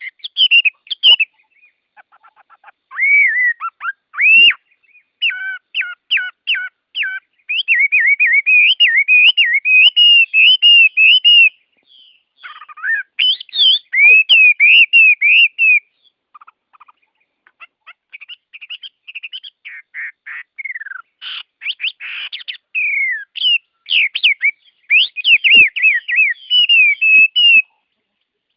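Songbirds singing in quick runs of chirps, whistles and trills, in phrases broken by brief pauses, with no other background sound between them. The song breaks off suddenly near the end.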